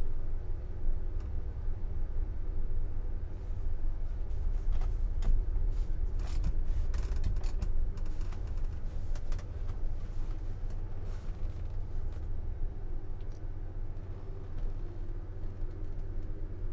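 Steady low rumble of the Woolwich Ferry's engines heard from its open deck, with a faint steady hum over it. A scatter of light clicks and knocks comes through the middle.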